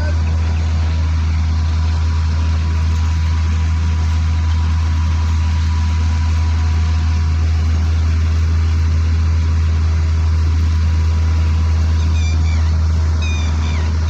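Harvesting machine running steadily with a loud, deep drone. A few short high chirps sound near the end.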